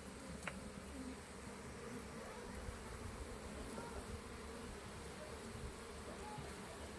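Many honeybees buzzing together, a steady, wavering hum.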